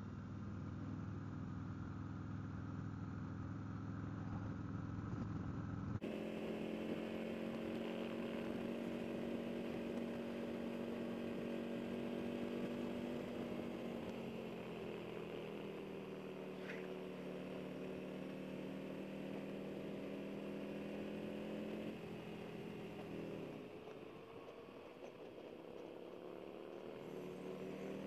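Harley-Davidson Road King Special's V-twin running on slip-on exhausts at road speed. Its pitch is steady, eases down around the middle, dips briefly near the end and then rises again as the throttle opens. The tone changes abruptly about six seconds in.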